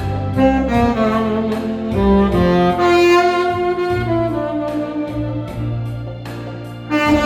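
Tenor saxophone playing a slow, smooth melody of long held notes over a backing track of strings, bass and a light steady beat.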